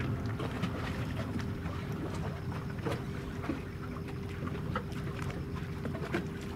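Waterside ambience across a bay: a low steady rumble with a faint steady hum, and scattered light ticks.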